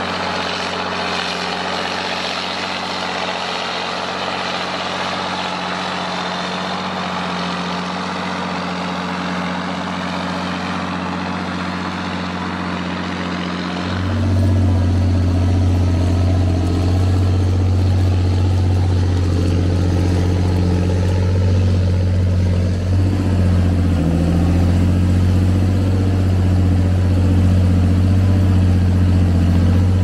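John Deere 8400's six-cylinder diesel on an open straight-pipe exhaust, running steadily under load while pulling a five-furrow plough. About halfway through the engine sound turns louder and deeper, heard close up from behind the tractor.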